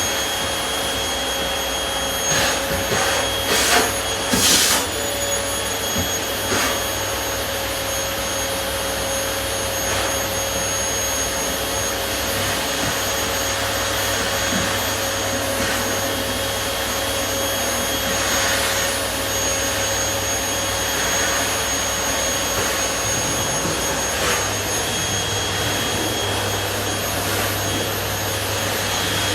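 Vacuum cleaner running steadily, a constant rush of air with a high motor whine. A few sharp knocks and clicks come between about two and five seconds in.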